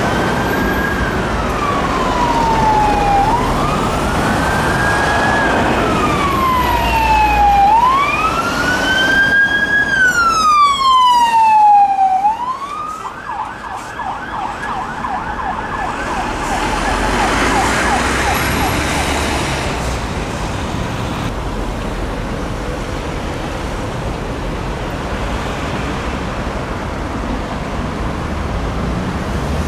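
Police car siren (Merseyside Police Peugeot 308) on a slow wail, rising and falling about every three and a half seconds, switching about twelve seconds in to a fast yelp that fades out around twenty seconds in as the car moves away, leaving only road traffic noise.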